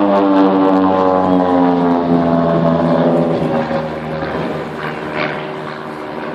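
Propeller aircraft's engine flying past, its pitch falling steadily as it goes by, then fading away.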